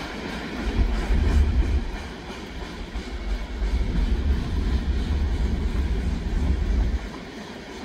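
Manifest freight train rolling past on the rails, a steady rolling rumble of railcars. A deep low rumble builds about a second in and drops away sharply near the end.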